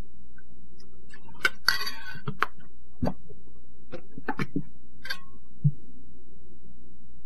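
A metal spoon clinking and tapping against a metal mixing bowl, about ten light scattered clicks, with a short splash of liquid poured in about two seconds in. A steady low hum runs underneath.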